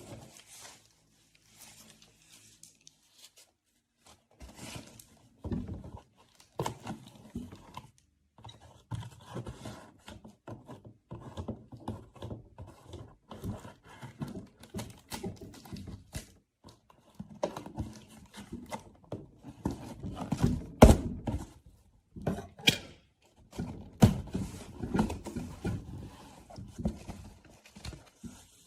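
Irregular knocks, taps and rustling of objects being handled in a small room, with a sharp knock about 21 seconds in.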